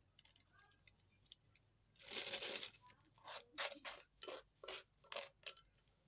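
Handling of crumbled tempe bait: a short burst of crinkling plastic bag, then about eight quick scrapes of a plastic scoop against a stone mortar, roughly two a second.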